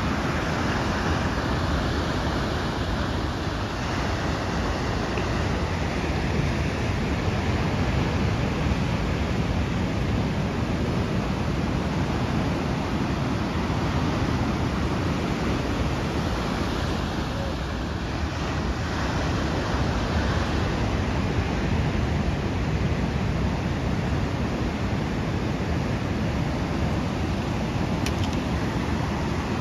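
Ocean surf breaking and washing up a sandy beach, a steady rush of noise with no distinct events.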